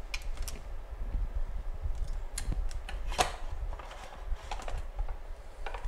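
Scattered light clicks and taps of a hand screwdriver turning screws into the plastic case of a misting booster pump, with a low rumble of handling.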